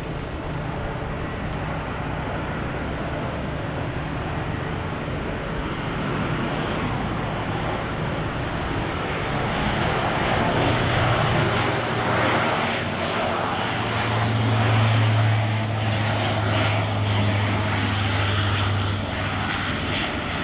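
Lockheed C-130J Hercules turboprop engines and propellers running steadily, with a low propeller hum that grows stronger about halfway through.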